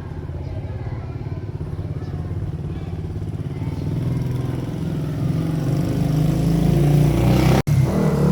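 A motor vehicle's engine runs with a low, pulsing note and grows steadily louder as it approaches. The sound cuts out for an instant near the end.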